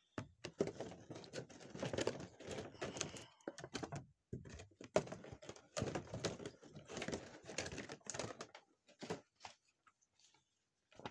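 Irregular rapid clicking and rustling of small objects being handled, busy for the first eight and a half seconds and then dying down to a few faint clicks.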